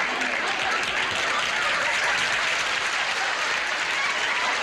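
Studio audience applauding: dense, steady clapping at a constant level.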